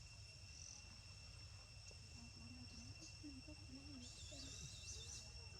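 Faint, steady high-pitched insect trilling, like crickets, with a faint distant voice in the middle and a brief high warble near the end.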